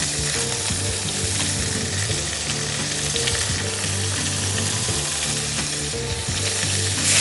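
Water pouring steadily into an aluminium pressure cooker over cut vegetables, a continuous splashing hiss, over background music.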